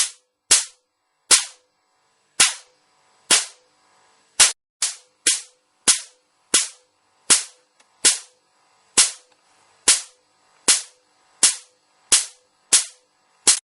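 Loud, sharp cracks from repeated high-voltage discharges arcing across a spark plug's gap, about one a second, each a short snap that dies away quickly.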